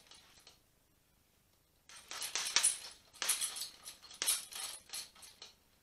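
Boxing gloves landing on a heavy punching bag in quick combinations: three or four bursts of rapid strikes, starting about two seconds in.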